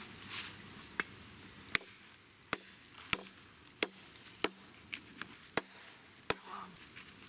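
Sharp chopping strikes on a deer leg laid across a log, about ten separate knocks spaced a little under a second apart, as the lower end of the leg is hacked at with a blade.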